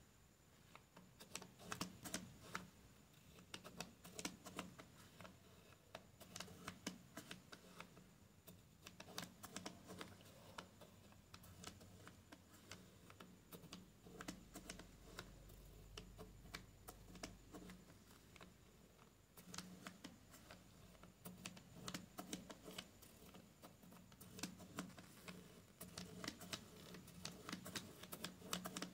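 Faint, irregular clicking of plastic spirograph gears as a pen drives the small toothed wheel around inside the clear toothed ring.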